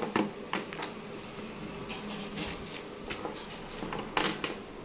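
Hands handling a coiled extension cord and its hook-and-loop strap: soft rustling with a few light clicks and knocks.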